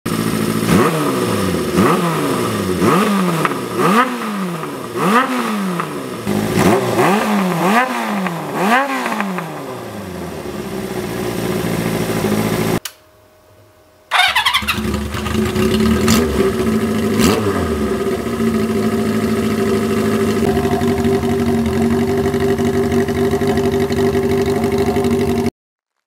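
Honda CB400Four's air-cooled inline-four through a Yoshimura four-into-one collector exhaust, blipped about once a second, each rev rising sharply and falling away. After a brief break it idles steadily, with one more blip.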